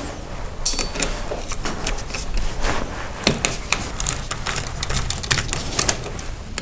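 Screwdriver working the terminal screws of an electrical receptacle, with scattered small clicks, ticks and scrapes of metal and wire being handled.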